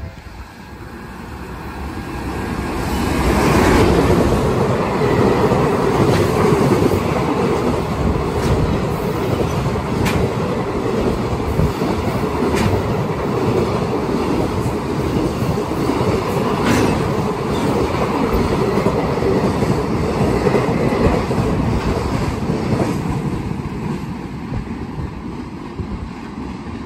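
EF210 electric locomotive and a 22-wagon Koki container freight train passing at high speed. The noise builds over about four seconds as the train arrives, then holds as a steady rumble of wagon wheels with regular clicks over the rail joints, easing off near the end.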